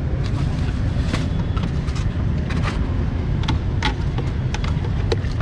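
Busy street-market background noise: a steady low rumble of passing traffic, with scattered short clicks and knocks.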